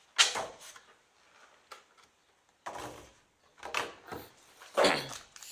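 A cardboard collection box being handled and turned over: a sharp knock about a fifth of a second in, then several short scraping, rustling bursts as the box and its contents shift.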